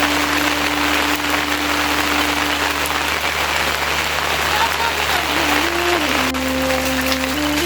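Steady rain hiss, with a slow melody of long held notes over it that changes note several times in the last few seconds.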